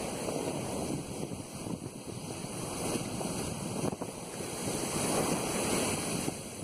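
Ocean surf breaking and washing up a sandy beach, with wind buffeting the microphone. The wash swells louder about five seconds in.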